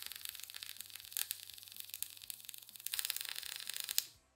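MIG welding arc from a Harbor Freight Titanium welder running solid wire under shielding gas, crackling steadily through a pulled bead, louder for about the last second, then cutting off suddenly as the trigger is let go. The welder is set too cold for this metal, so the bead sits on top instead of fusing in.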